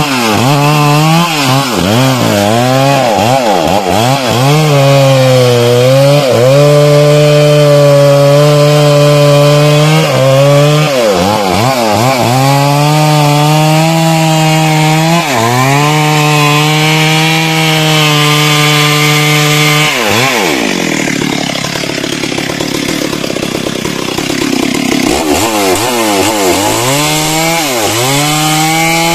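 Stihl MS 382 two-stroke chainsaw cutting through teak wood, running at high revs under load with repeated brief dips and recoveries in engine speed. About twenty seconds in the engine speed drops away, then it revs back up with wavering pitch near the end.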